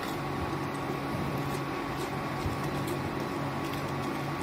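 Wooden spatula scraping and stirring whole spices on a dry tava as they roast, over a steady appliance-like hum.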